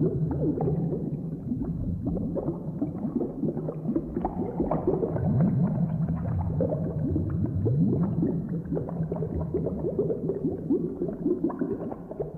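Cauldron bubbling sound effect: thick liquid bubbling continuously, a dense stream of bubble pops that often rise quickly in pitch.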